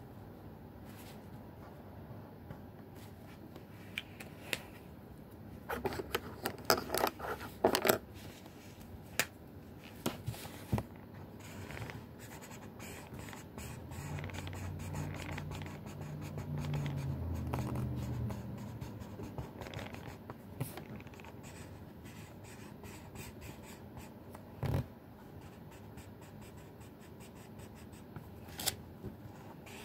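Felt-tip marker drawing on paper: soft scratching strokes, with a cluster of sharp clicks and taps about six to eight seconds in. A low hum rises for a few seconds in the middle.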